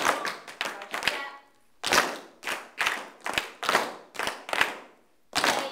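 A run of sharp, evenly spaced smacks, about three a second, each ringing briefly in a hard-walled room, with short pauses about one and a half seconds in and near the end.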